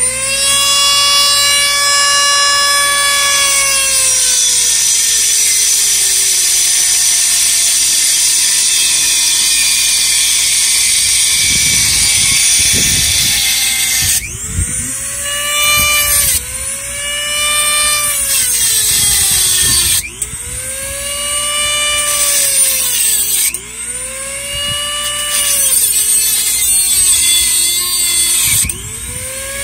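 Handheld rotary tool with a cutoff wheel grinding through the governor arm of a 5.5 hp small engine: a loud, high motor whine that sags slowly in pitch under load over the first ten seconds, then a run of short bursts about every two seconds, each whine rising and then dropping as the wheel bites into the metal, with a grinding hiss throughout.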